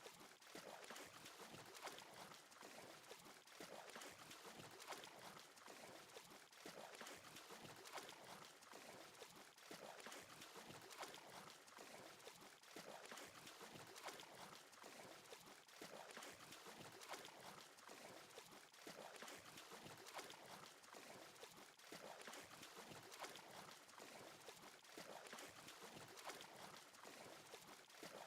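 Near silence: a faint, steady noisy hiss with light flickering crackle throughout.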